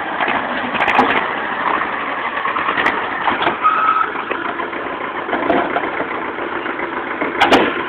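Tractor engine running steadily while the front loader works. A few sharp knocks sound over it, the loudest pair near the end.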